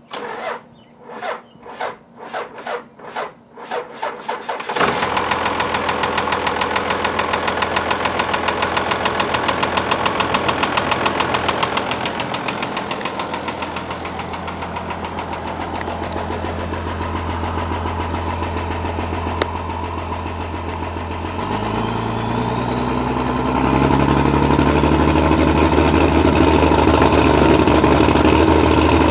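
Cranking of a 1994 Dodge Ram's 5.9 Cummins inline-six turbodiesel, about ten slow starter strokes before it catches about five seconds in, then a steady idle around 800 rpm. Near the end it is revved up to about 1500 rpm and held there, where the owner says it pops and stumbles, with white smoke and wet exhaust.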